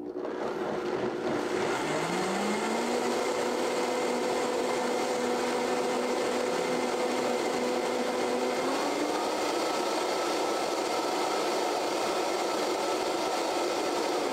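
Vitamix blender running at speed, blending a sauce. Its motor pitch rises over the first couple of seconds and steps up again a little past halfway.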